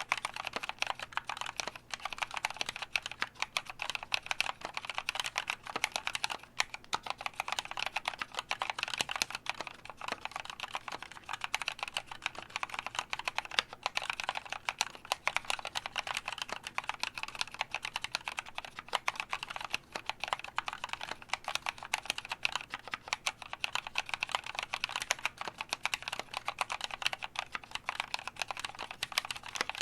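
Continuous fast typing on a mechanical keyboard with Kailh NovelKeys Cream linear switches, lubed on the springs only: a dense run of keystroke clacks with no spring ping.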